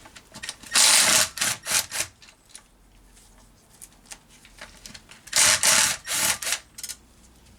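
Hand-tool work on a transmission case: two bursts of rapid rasping clicks, each about a second long, one near the start and one past the middle.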